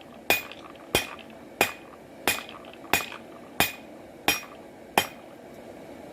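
Big blacksmith's hammer striking hot knife steel on the anvil, drawing out the tang to the thickness of the blade. Eight even blows about two-thirds of a second apart, each with a short metallic ring, stopping about five seconds in.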